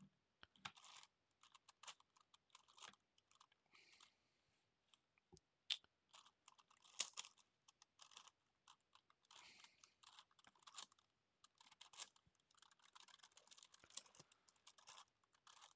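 Gigaminx puzzle being turned by hand: runs of quick plastic clicking and clacking as its layers rotate, broken by short pauses, with a few sharper single clacks.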